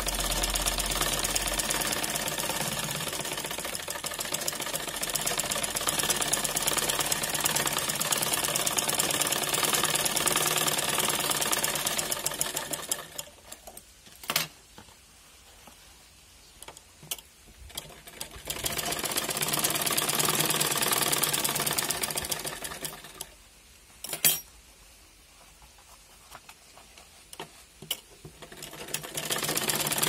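A small machine's fast rhythmic clatter, like a sewing machine, running in stretches of several seconds and stopping twice. During the pauses there are a few single sharp clicks.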